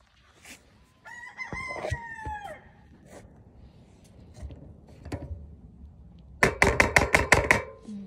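A rooster crows once, a single pitched call of about a second and a half that drops at its end. Near the end comes a rapid run of sharp clicks, about seven a second, which is the loudest sound.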